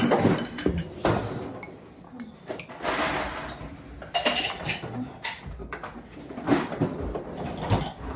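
Tableware clattering and clinking: spoons and ceramic plates and bowls knocking and scraping in a run of irregular taps as food is served.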